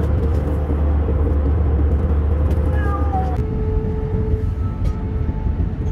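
Steady low drone of a jet airliner's cabin in flight, with a domestic cat meowing once, briefly and falling in pitch, about three seconds in.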